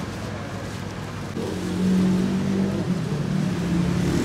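Steady hum of a motor vehicle's engine running nearby, getting louder about a second and a half in.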